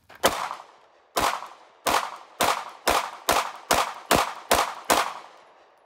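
Ten shots from a Sig P365 9mm compact pistol. They come slowly at first, then quicken to about two and a half a second, each with a short echo.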